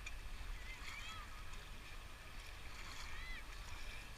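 Outdoor river ambience aboard a raft: a steady low wind rumble on the microphone over faint water hiss, with a couple of faint high rising-and-falling calls in the distance, about one and three seconds in.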